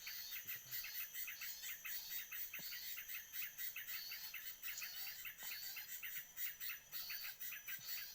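Small birds chirping in a rapid, continuous run of high calls, several a second, over a steady high insect drone.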